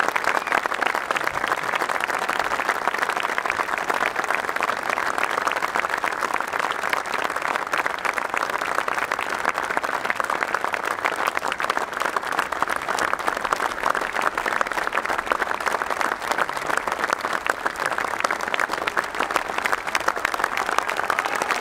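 A large crowd applauding, dense clapping that holds steady and unbroken.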